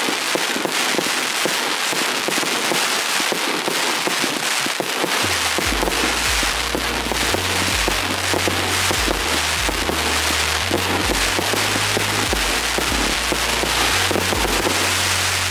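Fireworks display: dense, rapid popping and crackling of many shells bursting together. About five seconds in, music with a deep bass line comes in under the popping.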